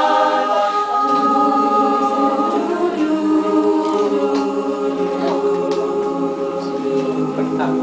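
Mixed choir of men's and women's voices singing a cappella in several parts, holding long, slow chords.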